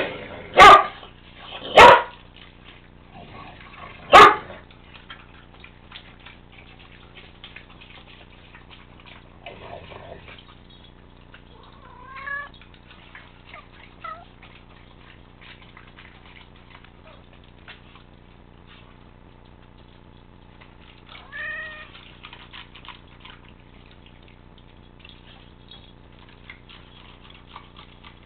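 Domestic cat crying out while it squabbles with a dog over a food bowl: three loud, short cries in the first few seconds, then a few meows that rise and fall in pitch about 12 and 21 seconds in. Faint clicking of dry kibble in a metal bowl between the calls.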